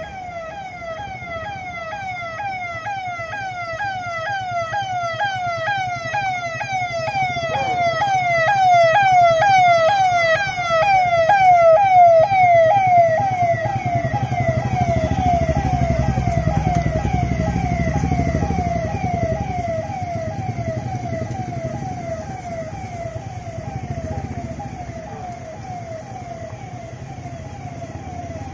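Police convoy's roof-mounted electronic siren, a rapid wail that drops in pitch about three times a second. It grows louder to a peak about halfway, then slowly fades. The engines of the passing SUVs and motorcycles rumble underneath, loudest just after the siren's peak.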